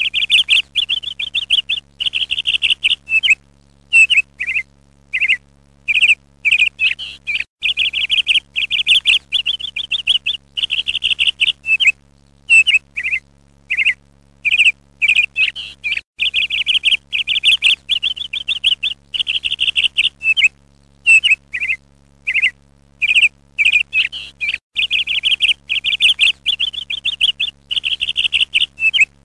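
A small bird singing: bursts of fast, high trills and short chirps with brief pauses between them, over a faint steady low hum.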